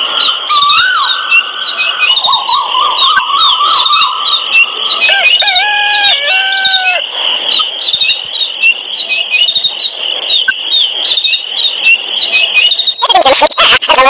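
Songbirds chirping and twittering continuously, with longer whistled calls in the first few seconds. About a second before the end, a denser, chattering sound cuts in over the birdsong.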